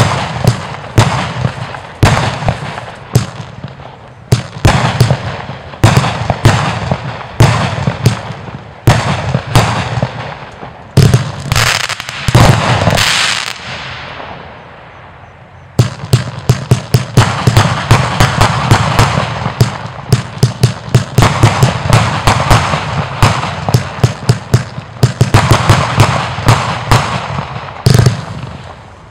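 Geisha Springmeister fireworks battery firing. First comes a steady run of sharp shot-and-burst bangs, then a stretch of crackling hiss, a short lull about halfway, and from there a much faster string of bangs.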